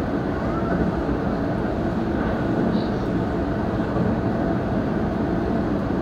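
Keihan 3000 series electric train running along the track, heard from behind the driver's cab: a steady running rumble of wheels on rails.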